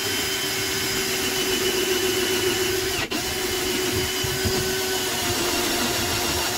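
Electric drill running steadily at constant speed with a hole-cutting bit pressed into the caravan floor, with a momentary break about three seconds in. The bit is hard to drill with and barely cutting because it is still plugged with the core from the previous hole.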